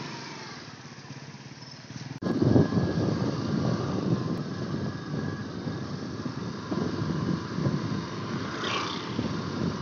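Motor scooter running as it rides past, then, after a cut about two seconds in, the ride heard from on the scooter: the engine hum under louder, uneven wind and road rumble on the microphone.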